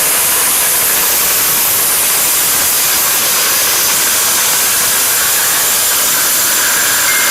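Maharaja 800-watt stainless-steel mixer grinder running at high speed, grinding pieces of whole turmeric into powder: a loud, steady whirring hiss. A faint thin whine comes in near the end.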